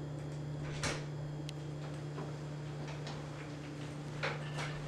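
A door being unlatched and opened: a few faint clicks and a soft knock over a steady low hum.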